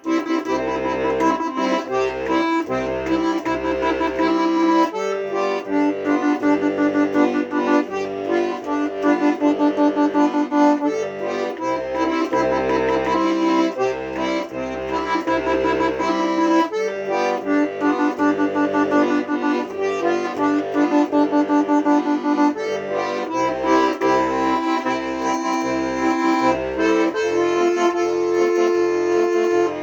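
Solo accordion playing an instrumental tune: a sustained melody over a bass line that pulses in a steady rhythm.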